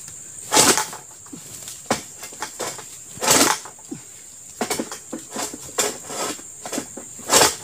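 A Palmking egrek, a sickle on a long pole, is pulled against an oil palm fruit-bunch stalk in three rasping scraping strokes about three seconds apart, with lighter knocks between them. The uploader finds the unsharpened factory edge too blunt, so the blade jumps on the stalk instead of biting. A steady high-pitched whine runs underneath.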